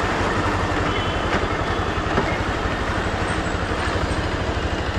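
Motorcycle engine running at low speed, with an even low pulsing and road noise, picked up by a camera on the handlebar close to the engine.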